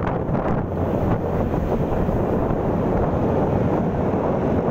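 Steady wind rush buffeting the microphone of a moving motor scooter, with the scooter's engine and road noise underneath.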